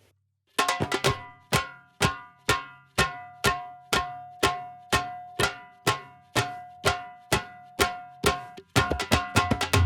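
Recorded tabla playing a steady pattern of ringing, pitched strokes about two a second, after a short gap at the start. Near the end a denser rhythm with deep bass drum strokes comes in.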